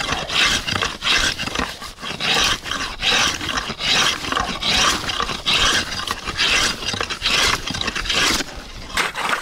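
Hand saw cutting through thick lake ice in even back-and-forth strokes, about two rasping strokes a second.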